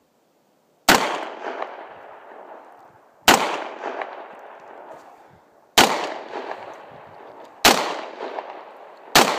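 Five shots from a Wyoming Arms Parker 10mm semi-automatic pistol, about two seconds apart with the last two closer together. Each shot is followed by a long echo. The pistol feeds and fires every round without a stoppage.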